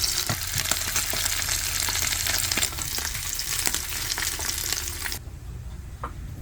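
Meat sizzling as it fries, a dense steady hiss that cuts off suddenly about five seconds in.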